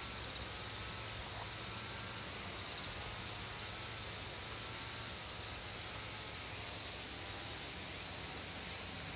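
Steady rural outdoor ambience: a constant hiss with insects droning at a high pitch, over a faint low hum.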